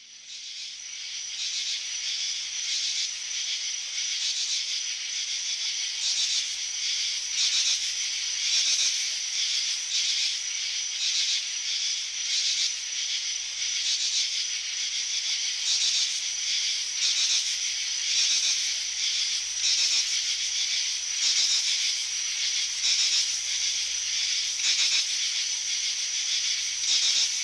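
A steady, high-pitched hissing noise that fades in over the first couple of seconds and then holds, with an uneven, flickering texture.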